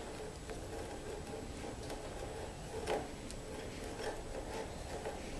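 Hand brace and auger bit boring into wood: a faint scraping of the bit cutting, with scattered light ticks and clicks from the turning brace, one louder click about three seconds in.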